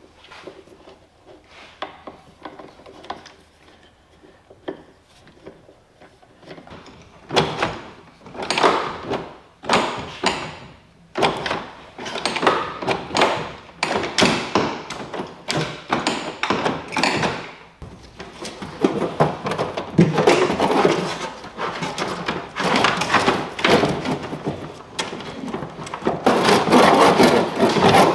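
Hand-work noises on the outboard engine: irregular knocks, clunks and rustling scrapes as cables and fittings are handled. Only a few faint clicks at first, then from about seven seconds in a busy run of handling sounds that grows louder toward the end.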